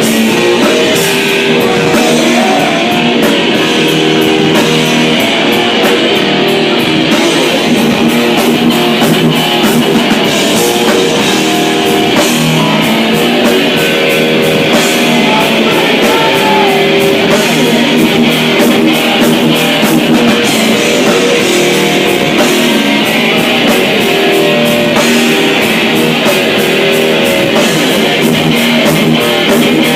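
Loud rock music led by distorted electric guitar, with drums, playing steadily.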